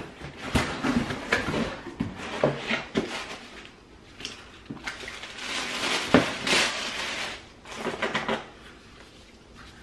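Paper and cardboard rustling and crinkling as a subscription box is unpacked: tissue paper and a magazine being handled, with light knocks of products against the box. The rustling comes and goes, loudest a little past six seconds in.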